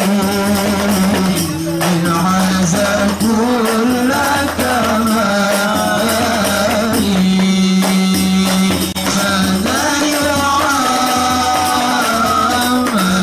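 Male voices singing an Arabic sholawat (devotional song) through microphones and a PA, accompanied by hand-struck frame drums (rebana). The melody holds one long note about halfway through.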